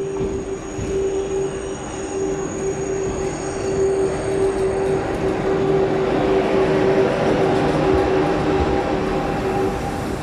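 TGV Duplex high-speed train pulling slowly along the platform, with a steady whine over the rolling rumble of the wheels. The rumble grows louder about halfway through as the power car and the double-deck coaches pass close by.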